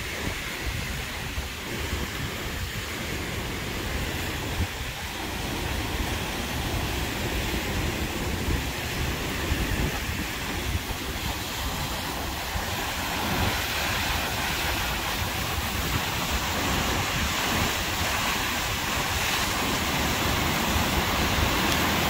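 Öxarárfoss waterfall and the Öxará river rushing: a steady roar of falling water that grows louder from about halfway through. Wind buffets the microphone.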